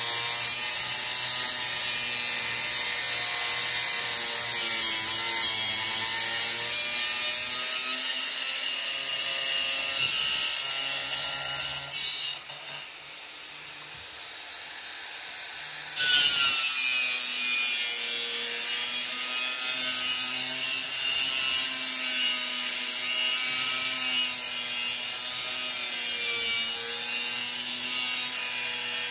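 Angle grinder cutting into the steel shell of a small compressor, its motor whining with a pitch that sags and recovers under load over a hiss of abrasive on metal. It stops about twelve seconds in and starts again sharply about four seconds later.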